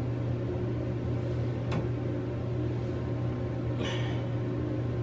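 Steady low machine hum, with a sharp click about two seconds in and a short light clatter near the end as measuring spoons and a jar are handled.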